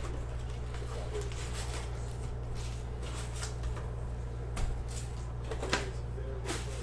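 Cardboard trading-card box being torn open and its foil-wrapped card packs pulled out and handled: soft rustling and crinkling with a few sharp crackles, over a steady low hum.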